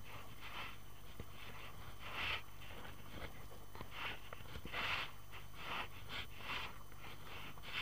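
Kayak paddle strokes in the sea, a short splash roughly once a second as the blade dips on alternate sides, over a steady low rumble.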